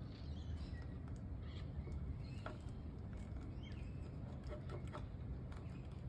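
Faint outdoor background: a low steady rumble with scattered bird chirps and a few light clicks.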